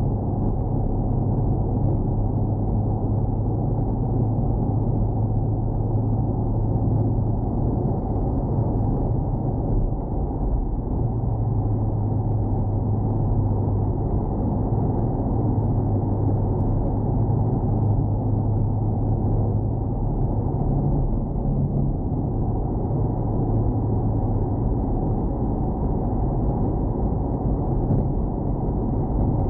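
Cabin sound of a 2019 Corvette Stingray cruising at highway speed, about 75 mph: a steady low drone of its 6.2-litre V8 mixed with tyre and road noise, heard muffled inside the car.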